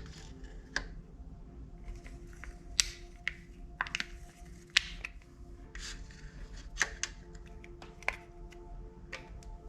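Slime being handled, squished and pressed, giving irregular sticky clicks and pops, about a dozen spread unevenly through the stretch, over soft background music.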